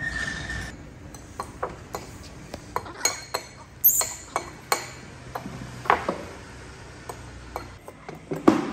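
Metal spoon clinking and scraping against ceramic bowls as food is spooned and cut: a string of light, irregular clinks.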